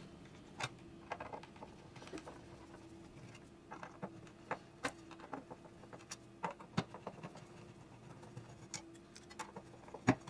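Faint, irregular clicks and light taps from hands and tools working on a loudspeaker's parts during disassembly, over a faint steady hum.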